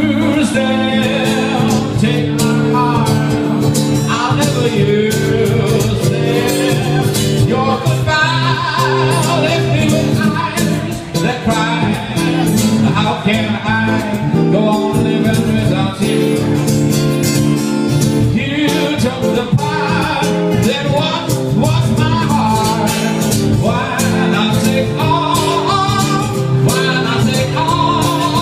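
Two acoustic guitars strummed together in a steady rhythm, with a man singing a melody over them.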